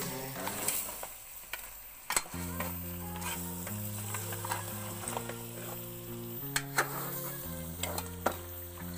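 Beef pieces sizzling as they are stir-fried in oil and spices in a metal pot, at the browning (bhuna) stage. A steel ladle scrapes through the meat and knocks against the pot now and then. Soft background music with held low notes plays underneath.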